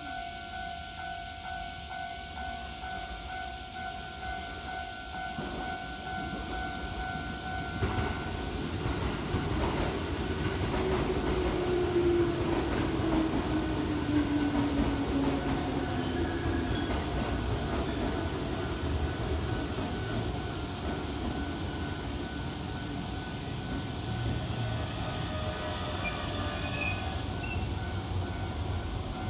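Keihan 7200 series electric train pulling into a station. Its rumble rises suddenly about eight seconds in, and a falling whine from the motors follows as it slows. It then runs on more slowly with faint higher tones near the end.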